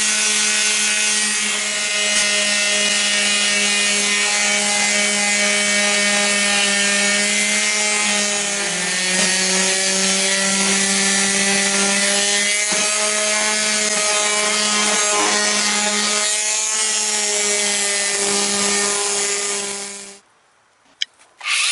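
Electric palm sander running steadily as it sands down a cured epoxy-fibreglass repair inside a canoe, a motor whine over the rasp of the sandpaper. Its pitch drops slightly about halfway through, and the sound cuts off abruptly near the end.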